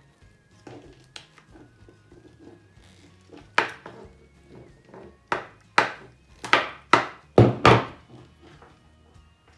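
A run of about seven sharp knocks, a few seconds in, as a lamp is cut through, over quiet background music.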